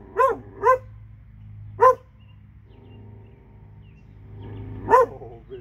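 A dog barking: single short barks, two in quick succession near the start, one about two seconds in and one near the end.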